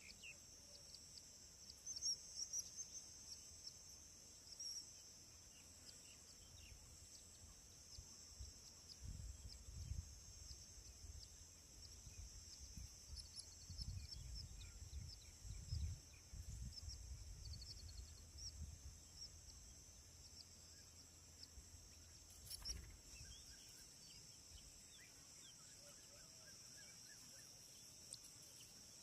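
Faint outdoor ambience: a steady high drone of insects, with scattered faint bird chirps. A low rumble comes and goes in the middle, most likely wind on the microphone.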